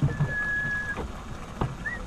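Water knocking and lapping against a small boat's hull, with a thin whistle-like tone that rises briefly, then holds steady for most of a second and comes back about every two seconds, once in the first second and again near the end.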